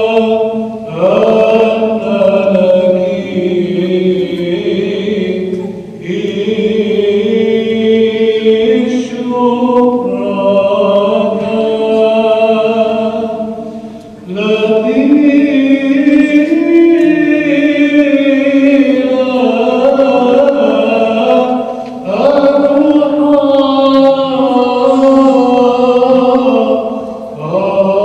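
Byzantine chant in the slow, melismatic Arabic Papadic style: a group of voices sings long held notes that glide between pitches over a steady low drone. Short breaks fall between phrases, and the singing rings in a reverberant church.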